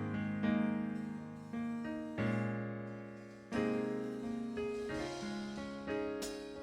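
Keyboard with a piano sound playing slow chords, each struck and left to fade before the next.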